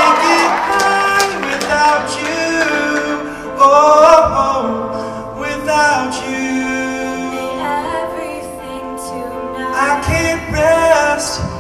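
Show choir of mixed male and female voices singing a pop song with a small live band backing them.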